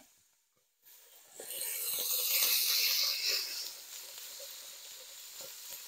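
Minced meat dropped into a very hot oiled pot, bursting into a loud sizzle about a second and a half in, then settling into a steady, quieter sizzle as it starts to brown.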